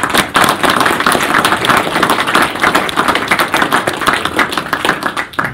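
Audience applauding, many people clapping together, stopping abruptly near the end.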